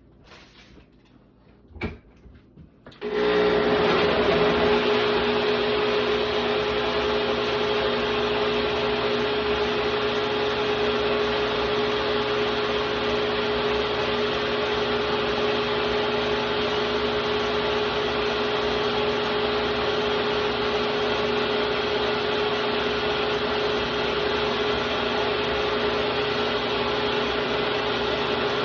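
A couple of light clicks, then about three seconds in an electric blender switches on and runs steadily at one even pitch, blending a smoothie of fruit, yogurt, honey and water.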